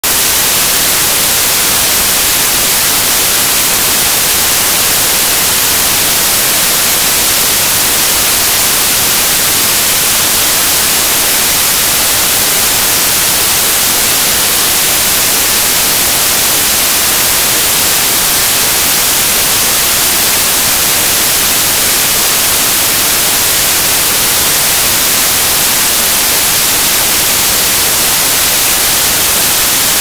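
Synthetic white noise: a loud, steady, even hiss that never changes.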